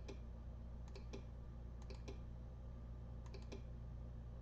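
Computer mouse clicking, each click a quick press-and-release pair, about one a second, over a steady low hum.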